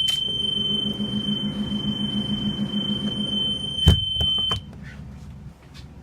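Side emergency exit door alarm buzzer on a school bus, a steady high tone sounding while the emergency door is open. A loud clunk of the door latching comes about four seconds in, and the buzzer cuts off just after it.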